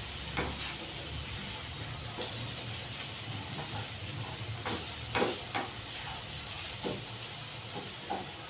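Spiced potato filling frying gently in a nonstick pan with a steady hiss, while a silicone spatula stirs it, scraping and knocking against the pan at irregular moments, most strongly about five seconds in.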